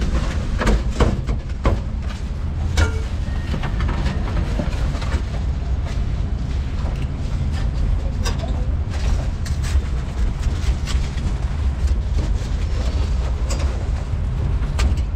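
Busy street ambience: a steady low rumble with scattered clatters and knocks throughout.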